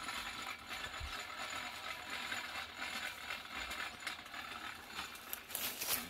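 Rope hoist on a tree clicking and rattling as the rope is hauled to lift a deer carcass, with a sharper clatter near the end.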